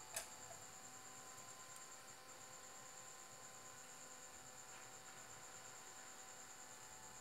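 Faint steady electrical hum from the running mains transformers of the rectifier circuits, with a few thin whining tones over a low hiss. A light click comes just after the start.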